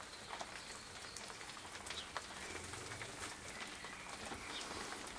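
Light rain falling on a garden pond and its stones: a steady patter of scattered drips and small splashes.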